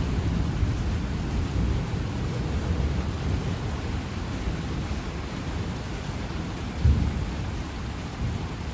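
Thunder rumbling low under steady rain, the rumble easing off over the first few seconds, with a short, sharper jolt of thunder about seven seconds in.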